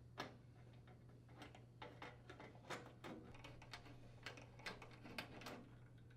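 Faint, irregular clicks and taps of a hand tool driving the screws that secure a furnace blower's air baffle, about a dozen in all, over a low steady hum.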